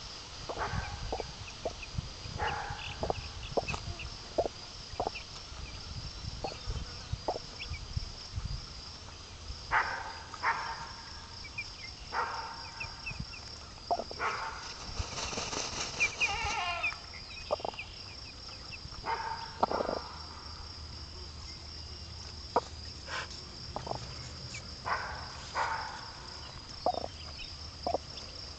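A hen clucking softly and her chicks peeping in short, scattered calls, over a steady pulsing insect trill.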